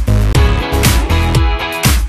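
Upbeat background music with a steady drum beat and heavy bass.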